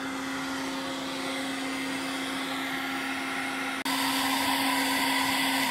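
Hairdryer running steadily on hot, blowing into a motorcycle petrol tank to dry it out after rinsing, with a constant hum under the rush of air. About four seconds in, the sound suddenly becomes louder and hissier.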